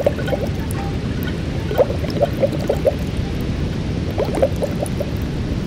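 Underwater bubbling: a steady low rush of water with small clusters of short bubble pops, twice in quick groups.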